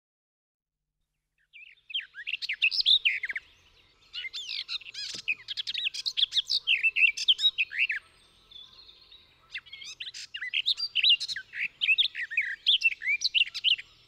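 Garden warbler singing: long runs of rapid, fluty, melodic warbling notes. The song starts about a second and a half in, with short pauses near four and nine seconds.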